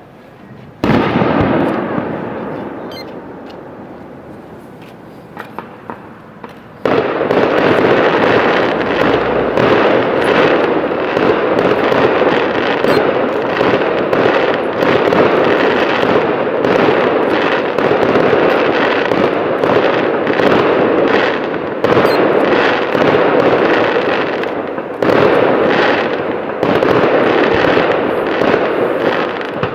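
Fireworks going off: one loud burst about a second in that fades away slowly, a few sharp cracks, then from about seven seconds on a continuous barrage of overlapping bangs and crackling.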